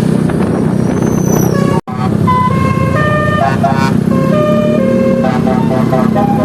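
Bus engine and road noise, then, after a brief cut about two seconds in, a multi-tone telolet bus horn playing a quick melody of stepped notes, often several at once.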